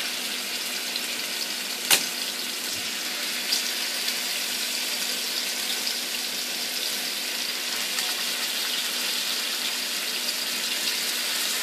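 Pieces of yogurt-and-green-masala marinated chicken sizzling steadily in hot oil as they shallow-fry in a frying pan, with more pieces laid in one by one. There is a sharp click about two seconds in.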